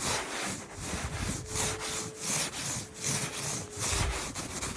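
Repeated brushing and rubbing strokes of snow across a car's rear window glass, about three strokes a second.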